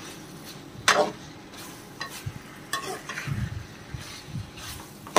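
Steel ladle stirring fried taro and chicken in a metal pot, scraping and knocking against the pot's sides over a low frying sizzle. The loudest scrapes come about a second in and at the very end.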